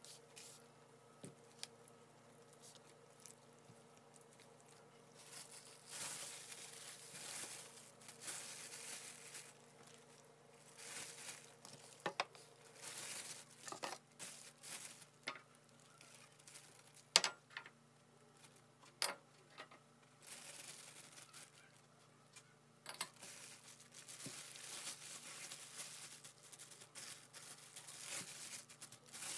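Clear plastic bag rustling and crinkling as raw chicken thighs are handled inside it, in irregular spells with occasional sharp clicks and taps. A faint steady hum sits underneath.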